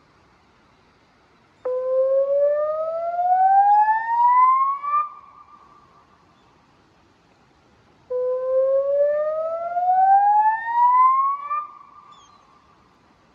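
River warning siren sounding through Bosch LBC-3406 horn loudspeakers in a warning activation: two slow rising whoops. Each starts suddenly low, climbs steadily for about three seconds, then breaks off with a short trailing tail.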